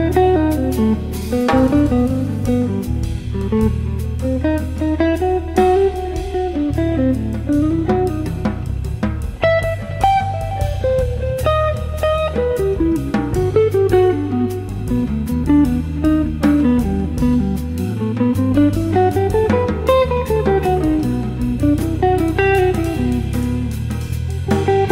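Instrumental music led by a plucked guitar melody that winds up and down over steady bass notes, with light drums.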